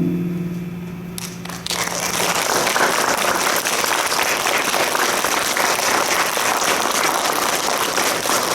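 A plucked-string music piece dies away in the first second or so, then an audience breaks into sustained applause.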